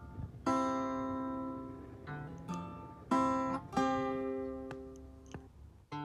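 Background music: acoustic guitar chords, each struck and left to ring out and fade before the next.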